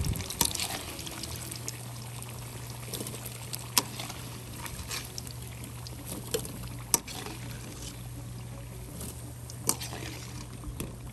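Potatoes deep-frying in hot oil in a wok: a steady sizzle and crackle of the oil, broken by a handful of sharp metallic clinks as a metal skimmer scoops potatoes out and knocks against the pot.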